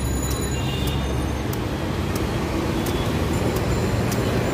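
Steady roadside traffic rumbling with vehicle engines. Faint, sharp ticks come at irregular moments, from a machete chopping the husk off palm fruits.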